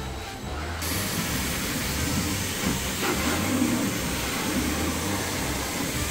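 High-velocity pet dryer blowing air onto a wet dog's coat: a steady hiss that starts suddenly about a second in.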